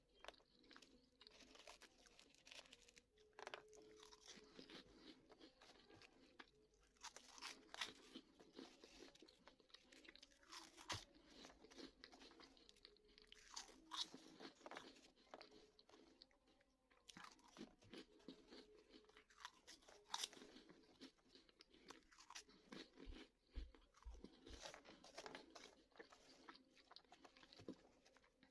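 Someone chewing crunchy Bozo snack balls: repeated, irregular crunches of the crisp puffs breaking between the teeth, with chewing in between. The crunches are quiet.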